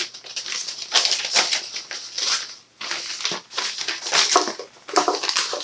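Wrapping paper from a mail package crinkling in irregular bursts as it is handled.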